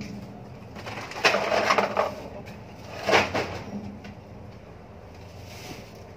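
Plastic garbage bags being handled, rustling and knocking in two loud bursts, one lasting most of a second and a shorter one about three seconds in, over a steady low hum.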